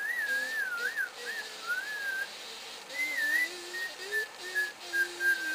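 A person whistling a wandering, wavering tune in short phrases, with a lower note sounding under parts of it.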